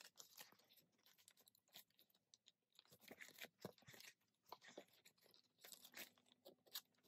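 Faint crinkling and rustling of plastic binder pages being turned one after another, a scatter of short irregular crackles.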